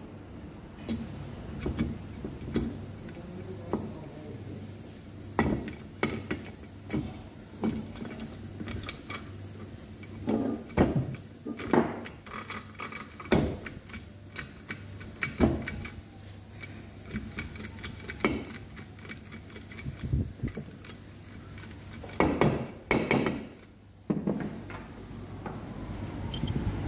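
Metal engine parts clinking and knocking irregularly as the gearbox shafts and gears of a Suzuki Gixxer engine are set into the crankcase, with a few louder knocks among lighter clicks.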